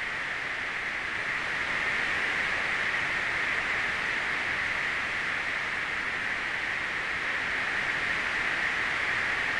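Steady hissing noise, strongest in a high band, growing slightly louder about two seconds in: a sustained noise texture from an experimental sound piece.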